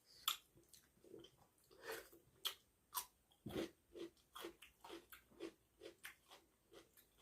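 A person chewing a mouthful of food close to the microphone: a few sharp crunchy clicks at first, then steady wet chewing about two strokes a second.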